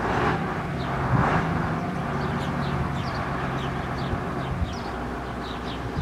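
Wind buffeting the microphone in gusts, with the steady low drone of a vehicle engine that fades out near the end and small birds chirping repeatedly in the background.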